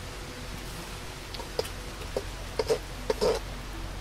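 A spoon knocking and scraping against an iron cauldron while its contents are stirred: a handful of light, irregular clicks in the second half, over a steady low hum.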